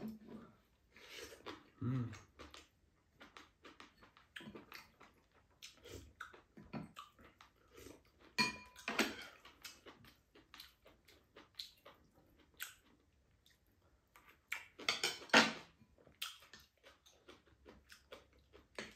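Eating at a table: chewing, with a serving spoon and chopsticks clicking and scraping against a pan and ceramic bowls as food is scooped onto rice. The clicks and scrapes are scattered and irregular, with a few louder clusters about halfway through and near the end.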